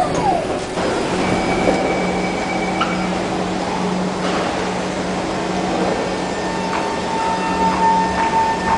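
SMRT C151 metro train standing at an underground platform and starting to pull away: a steady low electrical hum, with a steady whine coming in about two-thirds of the way through as it begins to move.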